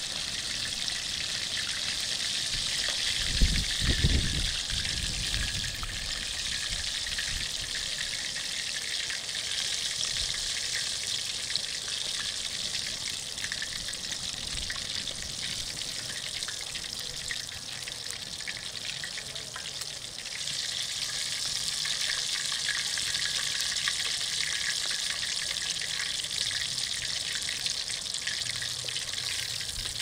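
Chicken deep-frying in hot oil: a steady sizzle with fine crackling. A low thump or two about three to four seconds in, and the sizzle grows a little louder about twenty seconds in.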